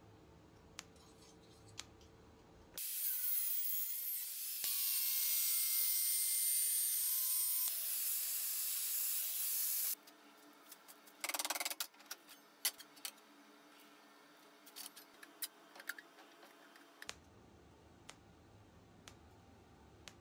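Angle grinder running on steel for about seven seconds, starting and stopping abruptly. A brief loud burst follows, then scattered light metal clicks and taps as steel parts are handled.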